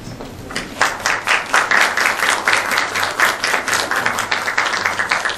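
Audience applauding, a dense patter of many overlapping claps that starts about half a second in.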